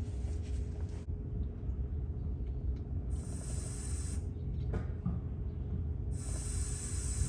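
Two short hisses, about three seconds apart, as the brake pedal is pumped to push fluid out through the open bleeder during a brake bleed, over a steady low rumble.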